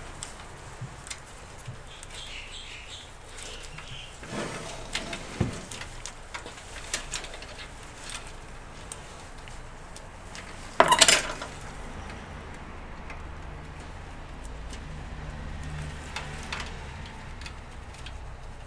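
Scattered light clicks and rattles of cables and plastic connectors being handled inside a PC case, with one louder scraping burst lasting about half a second, about eleven seconds in.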